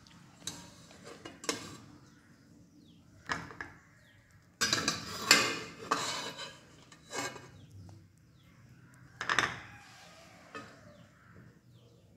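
Perforated steel skimmer scraping and knocking against an aluminium pressure-cooker pot as boiled taro pieces are scooped out of the cooking water, a series of separate clinks at irregular intervals, the loudest bunch about five seconds in.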